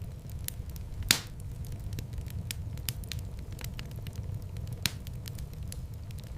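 Wood fire burning in a fireplace: a steady low rumble of flames with scattered crackles, a loud pop about a second in and another near the end.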